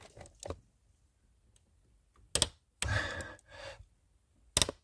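Pliers clicking and snapping against the Skoda Superb II's bonnet-release cable end and its plastic fitting as it is tugged: small clicks at first, then two sharp snaps about two seconds apart, with a strained breath between them. The cable is binding and will not pull out any further.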